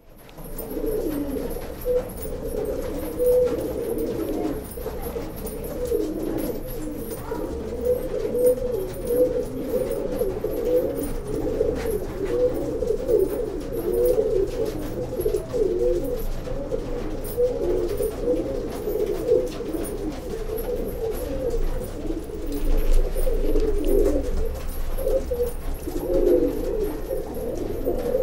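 Domestic pigeons cooing without a break, several birds' calls overlapping.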